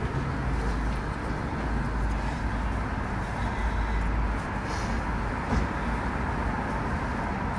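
Steady wind rumble on a phone microphone outdoors, heaviest in the first half, with light fabric rustling as a nylon delivery vest is pulled on and adjusted.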